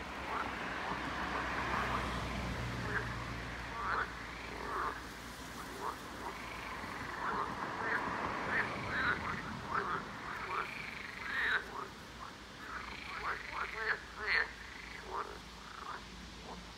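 A chorus of toads croaking their mating calls: many short, overlapping croaks that grow denser in the second half.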